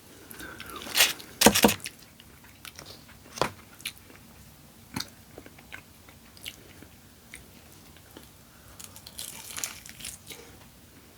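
Close-miked biting and chewing of crunchy food, with a few sharp crunches, the loudest about a second and a half in, and a denser run of crunching near the end.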